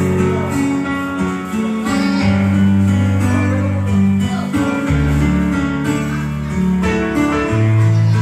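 Instrumental break in a pop ballad: guitar strumming chords over a bass line, with no singing.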